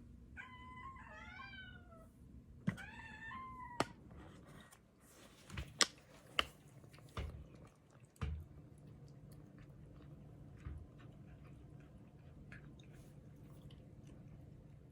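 A cat meowing twice in the first few seconds, each meow a short call that bends in pitch, followed by a few sharp knocks and clicks.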